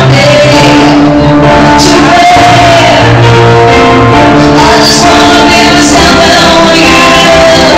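Loud pop music with a voice singing long held notes over the backing.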